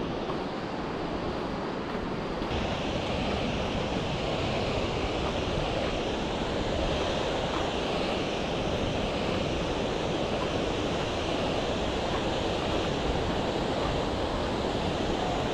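Steady rushing roar of a waterfall cascading over granite, with wind on the microphone. The hiss turns brighter about two seconds in.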